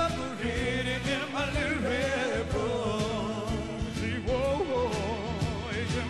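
Live soul vocal group performance: a male lead singer sings wavering runs with heavy vibrato over band backing with steady bass notes.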